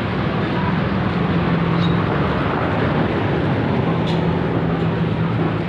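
Steady vehicle engine and street traffic noise: a constant hiss with a low engine hum underneath.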